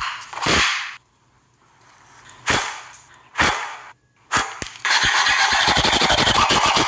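A few short scraping sounds, then from about five seconds in a small saw cutting through a thin wooden board with fast, even back-and-forth strokes, about eight to ten a second.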